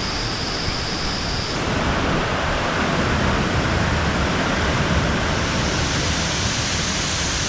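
Steady rushing roar of a large waterfall, Looking Glass Falls, pouring into its pool. The tone of the rush changes abruptly about a second and a half in.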